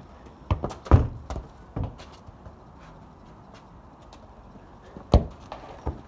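A football being touched and kicked on garden grass: several dull thuds, the loudest about a second in, then another sharp thud about five seconds in.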